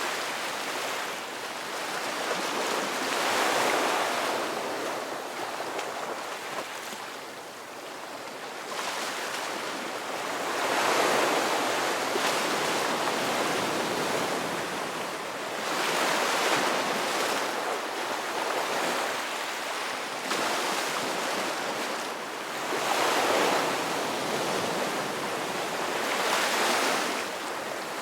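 Ocean surf: waves breaking and washing ashore in a steady rushing hiss that swells louder as each wave comes in, every five to seven seconds.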